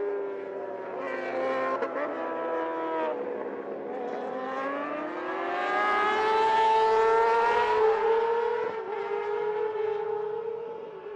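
Racing motorcycle engine running at high revs with a high-pitched wail. The pitch drops a couple of seconds in, climbs steeply to its loudest and holds there, then eases off near the end.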